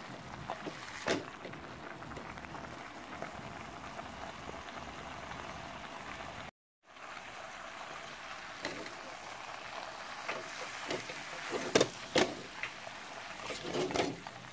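Cabbage and saltfish steaming in a pan with a steady sizzling hiss. A few sharp knocks come near the end.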